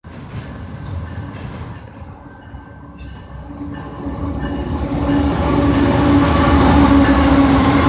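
A Canadian Pacific GE AC44CW diesel-electric locomotive approaches and passes close by. Its low engine rumble grows steadily louder through the second half, and a steady droning tone sets in a few seconds in.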